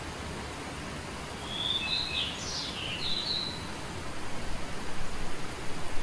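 A small songbird sings one short phrase of a few whistled notes with quick up-and-down sweeps, about a second and a half in, over a steady hiss. The hiss grows louder and more uneven near the end.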